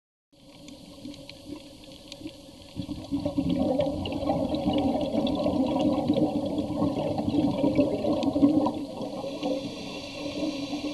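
Underwater recording of rushing, bubbling water, louder from about three seconds in.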